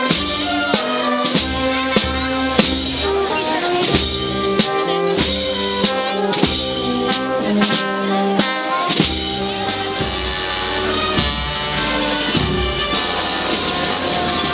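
Brass band music: held brass chords over a regular drum beat.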